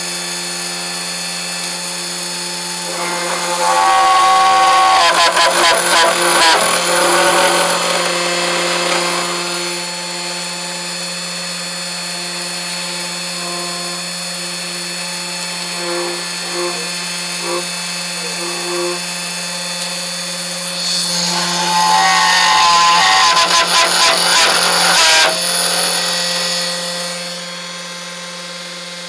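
Desktop CNC router spindle (GRBL 3018 Pro) running steadily with a constant whine. Twice it turns louder and rougher for a few seconds as the bit plunges and drills a hole into the panel.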